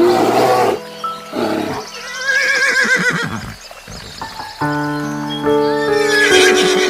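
A horse whinnying, a long call with a quavering pitch, then another whinny near the end, over background music with sustained chords.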